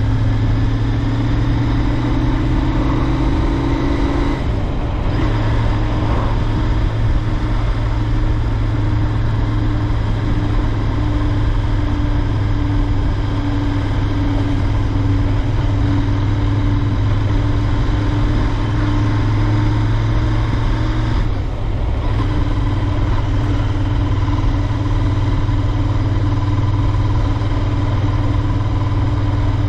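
Royal Enfield Interceptor 650's 648 cc parallel-twin engine running under way while riding. The note climbs slightly over the first few seconds, then drops out briefly twice, about five seconds in and again about twenty-one seconds in.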